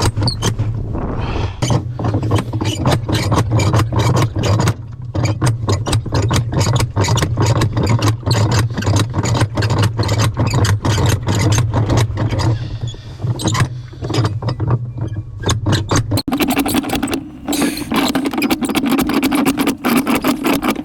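A motor running with a steady low hum under a rapid, irregular clatter; the hum steps up to a higher pitch about three-quarters of the way through.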